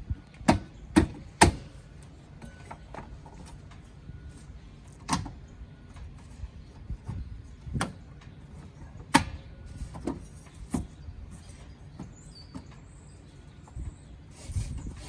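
A series of sharp knocks and clacks at irregular intervals: three loud ones in quick succession in the first second and a half, then scattered single knocks through the rest, over a low background rumble.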